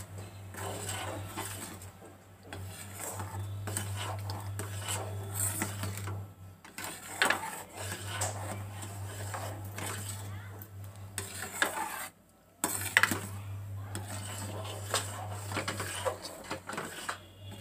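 A metal ladle stirring thick carrot soup in an aluminium kadai, scraping and clinking against the pan in repeated irregular strokes, over a steady low hum.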